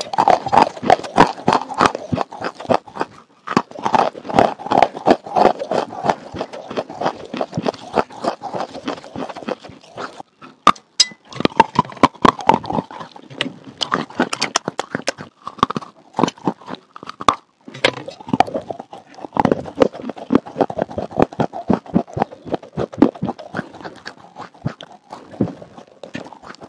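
Chewing a mouthful of wet red slate: dense wet crunching and clicking mouth sounds, broken by a few brief pauses.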